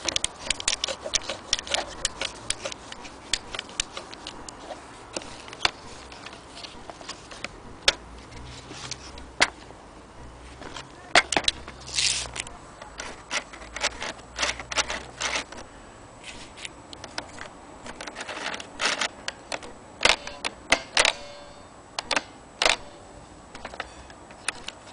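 Irregular clicks, taps and knocks of an old Kodak folding camera being handled and turned over, its parts clicking against each other and the table.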